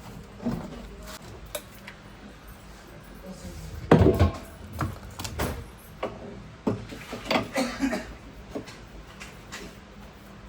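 Irregular knocks and clattering from things being handled, the loudest a heavy thump about four seconds in, over a low steady hum.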